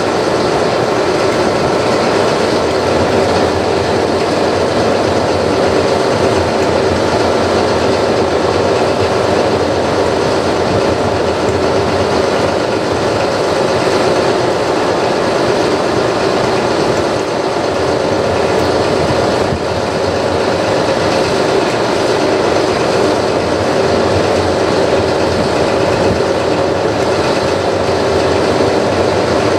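Class 43 HST diesel power car running steadily while standing, a loud unbroken engine sound with a steady whine on top.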